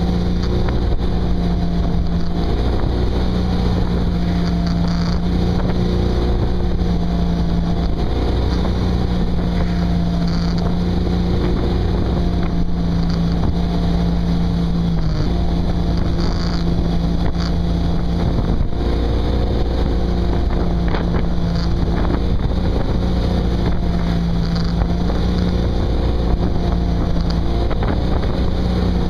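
Tow boat's engine running steadily at skiing speed, its tone stepping slightly up and down every few seconds, with wind buffeting the microphone and the rush of the wake.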